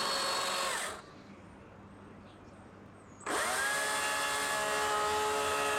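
Small electric power tool running with a steady whine; it winds down and stops about a second in, then is switched on again a little after three seconds and spins up to speed.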